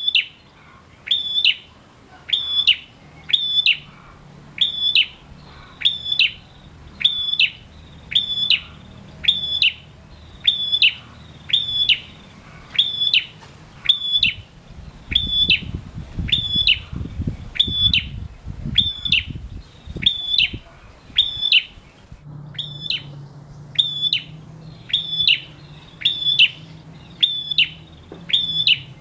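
A male prenjak singing without pause, repeating one short, sharp, high call about once a second. A low rumble sits underneath near the middle.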